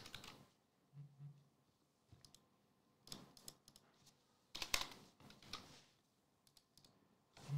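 A few faint, scattered clicks and taps from handling at a desk, in small clusters, the loudest a little under five seconds in.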